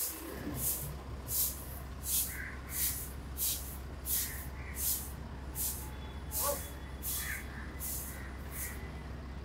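Heavy rhythmic breathing close to the microphone, a hissy puff about every two-thirds of a second, over the low steady hum of an idling car.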